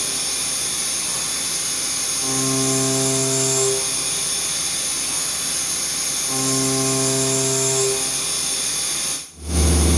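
Background music: a held chord returns for about a second and a half every four seconds over a steady hiss. It breaks off near the end, and a louder low steady hum begins.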